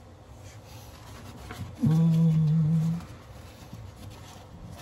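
A man humming one steady low note for about a second.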